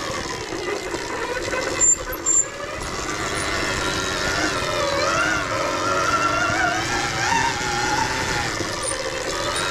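Off-road motorbike's motor running while riding a trail, its pitch rising and falling with the throttle. Two short sharp knocks about two seconds in.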